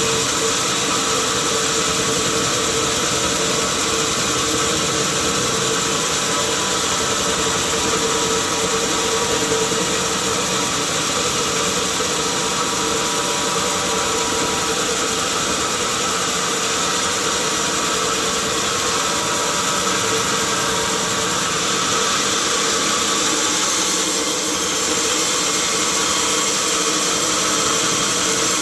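Sawmill machinery running steadily, a dense even noise with a constant hum.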